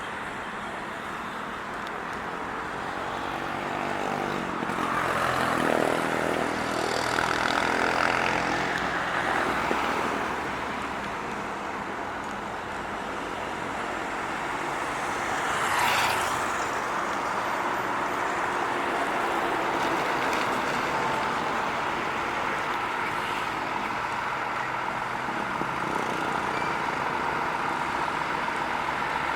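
Heavy truck engines running amid road traffic, swelling louder as a truck passes about five to ten seconds in. There is a short sharp hiss about sixteen seconds in.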